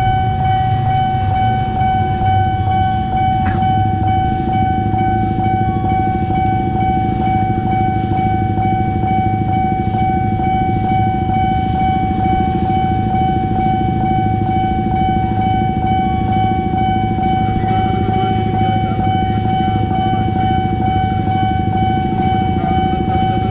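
Railway level-crossing warning alarm sounding while the barrier is down: one unbroken electronic tone with a regular beat a little more than once a second, over a low traffic rumble.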